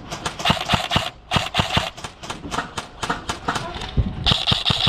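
Airsoft guns firing in quick, irregular volleys of sharp shots.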